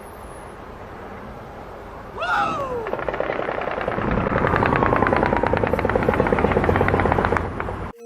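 Rapid gunfire in one long continuous volley, many shots a second, starting about three seconds in and cutting off suddenly near the end. A short falling wail comes just before it.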